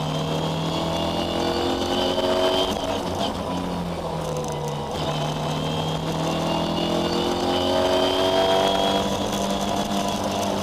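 Ford Escort rally car's engine under hard acceleration, heard from inside the cabin. Its pitch climbs as it pulls, then drops at gear changes about three seconds in, about five seconds in and again near the end.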